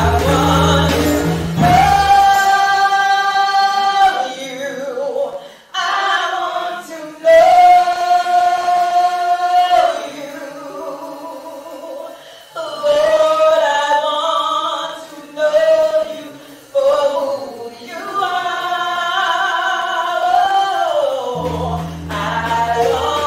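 Gospel choir singing long held notes, largely unaccompanied; low bass backing sounds for the first two seconds and comes back near the end.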